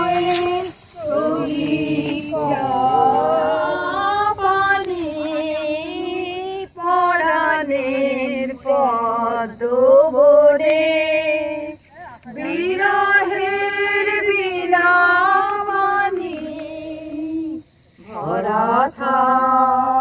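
A woman singing a melody in long phrases of a few seconds each, with wavering held notes and short breaks between phrases; the voice stands out over little or no audible accompaniment.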